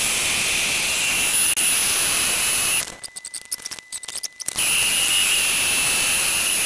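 Vertical milling machine running, its end mill cutting the sides of a gunmetal boiler-dome casting: a steady high whine over a noisy hiss. About three seconds in, the sound drops away for a second and a half with a few scattered clicks, then comes back.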